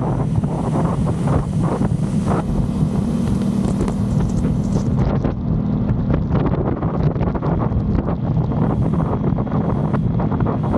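Aprilia Tuono 660 Factory's parallel-twin engine running steadily while the bike is ridden, under heavy wind noise on the microphone.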